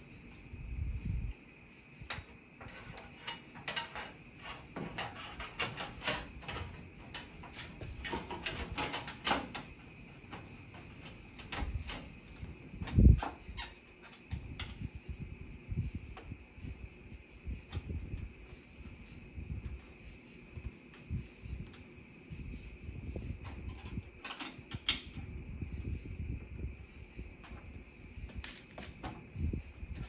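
Metal clicks, rattles and taps from a stainless steel burner knob panel being fitted by hand onto a Samsung gas range's valve stems. There is a loud knock about 13 seconds in and a sharp click near 25 seconds, with a steady high-pitched whine underneath.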